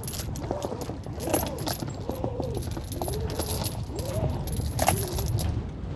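Anchor chain clinking and rattling in short, irregular metallic clicks as it is hauled by hand into an inflatable dinghy to recover a mooring anchor, over a steady low rumble.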